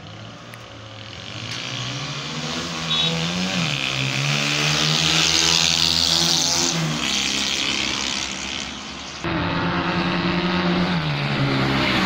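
Small 70cc motorcycle engines running under acceleration, the engine note growing louder as a bike approaches, its pitch climbing and dropping back as it shifts up a gear. There is an abrupt cut about nine seconds in to another stretch of the same engine note. The bike has just been tuned up and is being test-ridden for pickup.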